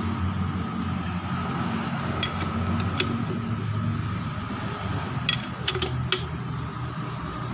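Sharp metallic clinks of a ring spanner on the crankshaft pulley bolt as a Mitsubishi 4D56 engine is turned over by hand: one about two seconds in, another at three seconds, then a quick run of four between five and six seconds, over a steady low hum.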